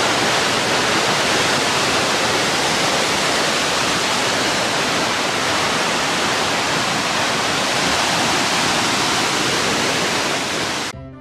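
Steady rush of a tall waterfall, heard close to its base as it pours onto the rocks and pool below. It cuts off abruptly near the end, where music begins.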